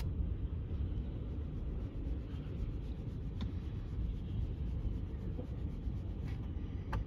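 Freight train of tank cars rolling past: a steady low rumble of steel wheels on the rails, with a couple of faint sharp clicks.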